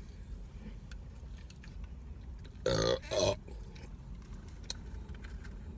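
A person burping: two short, loud belches in quick succession about three seconds in.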